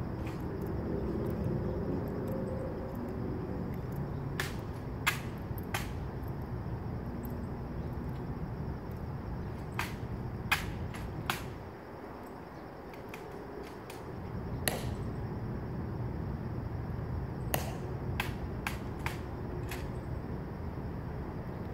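About a dozen sharp, separate clicks and taps, spaced unevenly with small clusters, from the Tomb guards' metal-tapped heels and rifle drill, over a steady low rumble.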